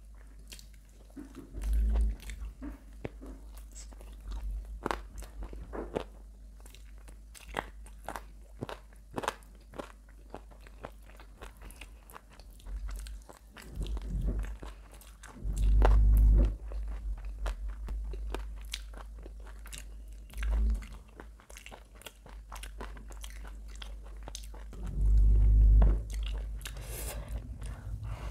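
Close-miked eating: crunchy bites and chewing with sharp clicks and crackles, broken by a few dull low thumps, the loudest about halfway through and near the end.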